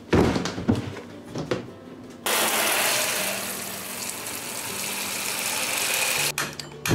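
A few knocks as a plastic cooler is moved and set down, then a sink sprayer hose spraying hot tap water into the empty plastic cooler: a steady hiss that starts about two seconds in and stops suddenly shortly before the end.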